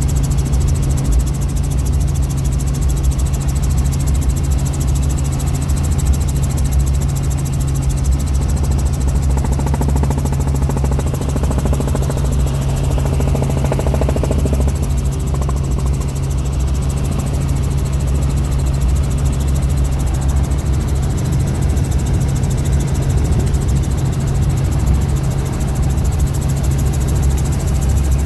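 Helicopter engine and rotor noise heard inside the cabin in flight: a loud, steady low drone that does not change.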